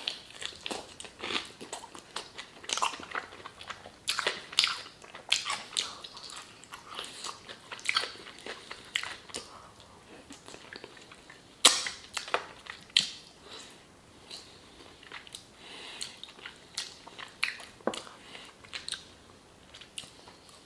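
A person chewing and biting into crispy fried chicken close to the microphone: irregular wet smacks and crunches of the breading, with two louder crunches about halfway through.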